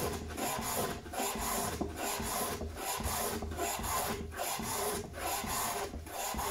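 An old Preston hand plane, set to a light cut, taking shavings off a wooden edge in a steady run of short strokes, roughly one and a half a second, each a hissing rasp with a brief pause between.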